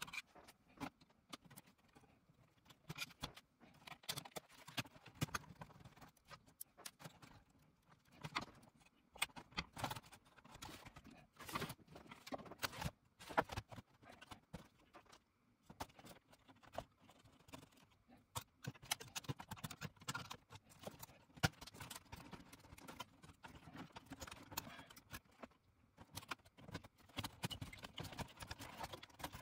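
Hands and a screwdriver working on an opened cassette deck: irregular clicks, taps and knocks of its metal chassis and plastic front panel being handled.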